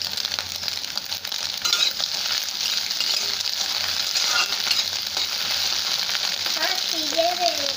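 Scrambled egg sizzling steadily in hot oil in a kadai, while a metal spatula stirs it and scrapes against the pan with scattered clicks.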